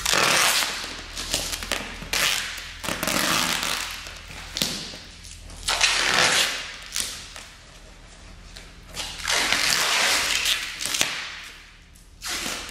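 Packing tape pulled off the roll in several long rasping strips, each one to two seconds, and pressed onto a foam wrapping sheet, with the foam rustling and light handling knocks between them.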